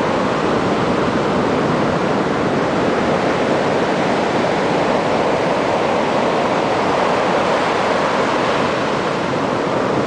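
Pacific Ocean surf breaking and washing up a sandy beach, a steady rush of water.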